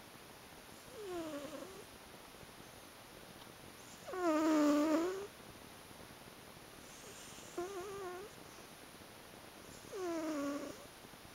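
Domestic cat snoring in its sleep: four drawn-out snores about three seconds apart, each with a clear pitch that dips and rises. The second snore is the loudest.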